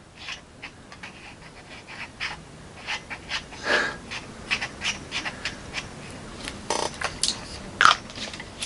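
Wet mouth sounds of a person tasting roller-ball liquid candy: repeated lip smacks and tongue clicks as he licks the plastic ball, with a couple of short sniffs or breaths.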